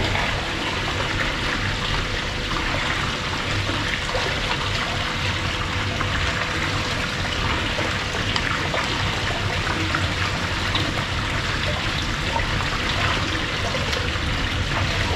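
Small garden waterfall spilling from a wall spout into a koi pond: steady splashing and trickling water.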